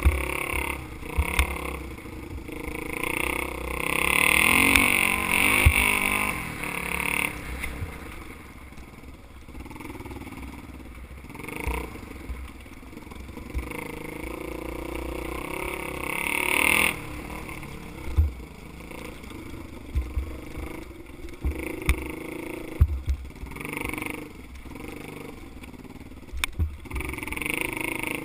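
Dirt bike engine revving up and down as it is ridden along a rough woodland trail, with occasional short knocks and thumps. It is loudest about four to seven seconds in and again around sixteen seconds in.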